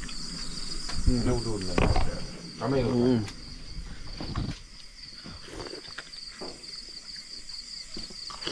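Steady high chirring of night insects, crickets among them, with short bursts of voices in the first three seconds.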